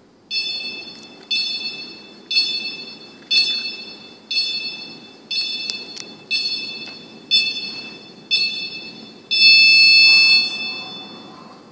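Gym interval timer counting down: nine short electronic beeps one second apart, then one longer, louder beep that signals the start of the workout.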